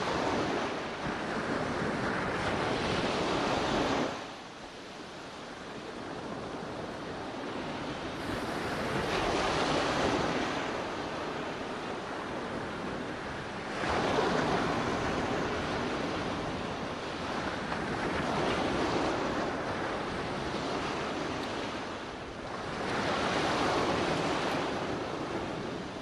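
Sea waves breaking and washing in, the surf swelling and fading every four to five seconds.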